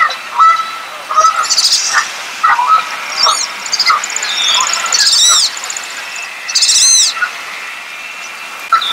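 Wood duck calls: a series of high, squealing notes that each rise and fall, about four in a row a second or two apart, with shorter, lower chirps between them and a faint steady high tone underneath.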